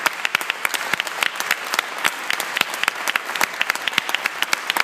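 Audience applauding, many people clapping at once in a dense, even run of claps.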